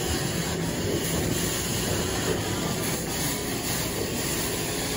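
Hot-water carpet extraction wand working: a steady rush of vacuum suction with hissing spray as the wand is drawn across the carpet.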